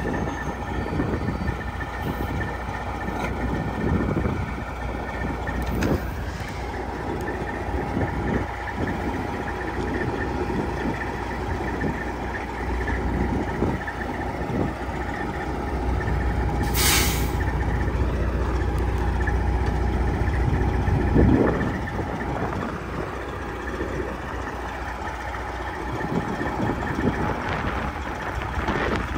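Heavy diesel dump truck engine running with a steady low rumble, and one short, sharp hiss of air about 17 seconds in.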